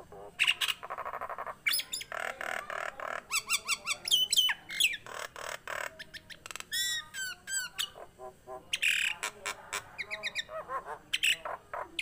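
Caged common myna calling in a rapid, varied run of harsh squawks, buzzy rattles, clicks and whistled notes that slide up and down in pitch, phrase after phrase with short gaps.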